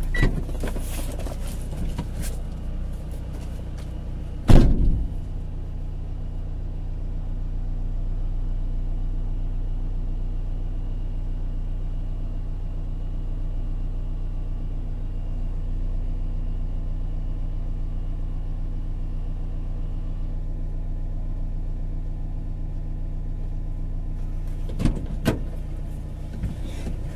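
Vehicle engine idling with a steady low hum, with a single loud door slam about four and a half seconds in and a few knocks near the end.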